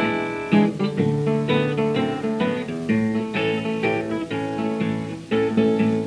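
Solo acoustic guitar playing a country blues introduction, a run of picked notes mixed with strums, from a 1931 78 rpm record.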